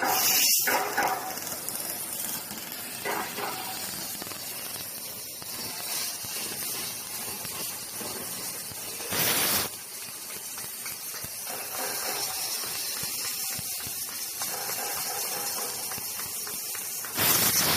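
A machine running with a steady hiss, with two short, louder bursts of hiss about eight seconds apart.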